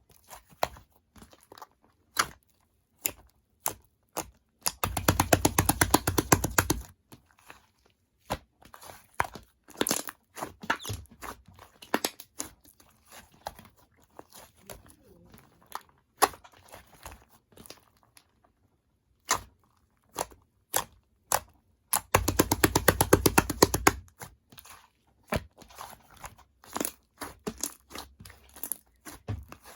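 Close-up cake eating with a metal spoon: scattered sharp spoon clicks and chewing, and about five and twenty-two seconds in, two stretches of about two seconds of rapid crackling.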